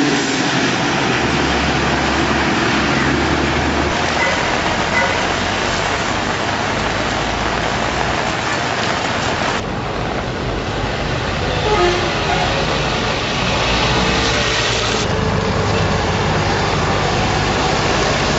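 Heavy rain with road traffic on a flooded road: auto-rickshaw and truck engines and tyres swishing through standing water over a steady hiss of rain. The noise changes abruptly about ten and fifteen seconds in.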